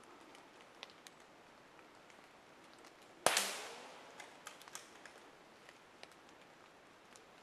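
A single rifle shot about three seconds in, its report echoing and fading over about a second, with a few faint ticks before and after.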